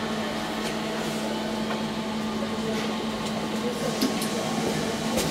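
Steady mechanical hum inside the car of a new SMW machine-room-less traction elevator, with a low held tone. A few short clicks about four seconds in as a car button is pressed.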